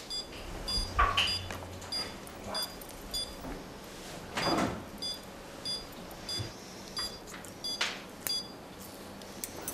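Veterinary anaesthesia monitor beeping steadily, about two short high beeps a second, tracking the anaesthetised cat's pulse during surgery. A few brief soft handling noises, the loudest about halfway through.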